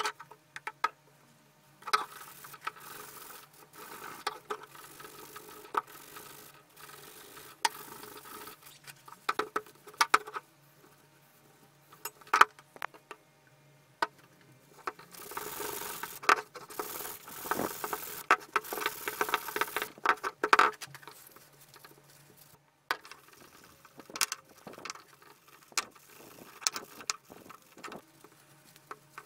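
Steel drill-press parts handled on a wooden workbench: scattered knocks and clinks as they are picked up and set down, with a longer stretch of rubbing about halfway through as they are scrubbed and wiped clean with metal cleaner.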